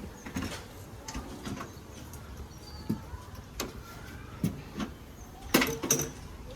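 Scattered knocks and clicks, a few seconds apart, with a louder clatter of several knocks near the end: parts and tools being handled during air conditioner installation work.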